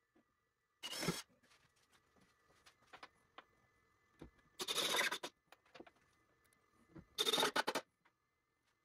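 Cordless drill driving screws into a cedar board to hold it down, in three short bursts: a brief one about a second in, then two longer ones near the middle and near the end.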